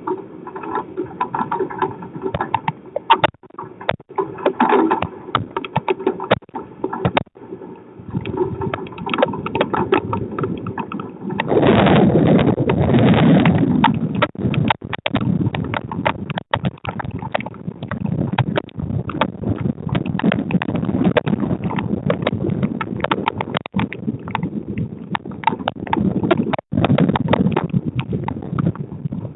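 Storm wind and rain buffeting an outdoor security camera's microphone, a constant crackling rush with a stronger surge about 12 seconds in.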